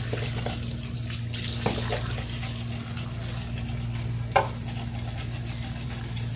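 Tap water running onto queenfish in a sink while a knife scrapes off their scales and slime, with scattered scraping clicks. One sharper knock comes about four seconds in. A steady low hum sits underneath.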